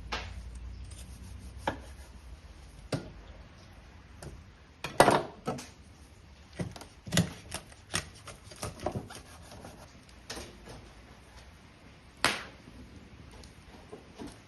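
Irregular knife knocks on a cutting board during food preparation, a dozen or so separate strikes, with a louder cluster about five seconds in and another sharp knock near the end.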